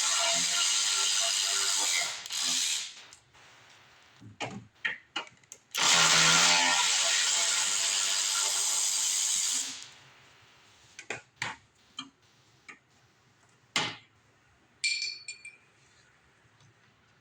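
A cordless power driver runs in two bursts of a few seconds each, the second spinning up in pitch at its start, as it runs down the 5/16 fasteners that hold a replacement carburetor on. Then scattered light knocks and clicks of tools and parts being handled.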